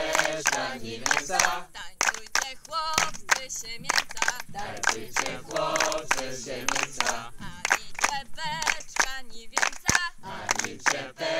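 A group of men and women singing a song together, with many short sharp percussive hits throughout.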